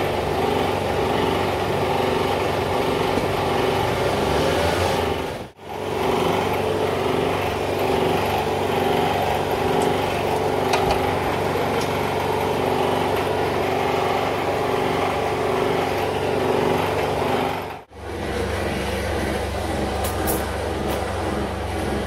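Steady machine noise, like a small motor running, with a constant hum of several fixed tones. It dips out briefly about five and a half seconds in and again near eighteen seconds, and is heavier and lower after the second dip.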